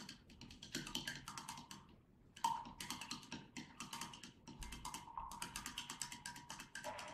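A wooden stick stirring liquid in a stemmed glass goblet, rapidly clicking against the glass, several taps a second, with a faint ringing from the glass. The stirring pauses briefly about two seconds in, then resumes.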